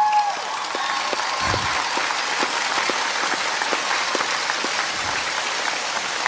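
Large audience applauding steadily, with a loud whistle right at the start.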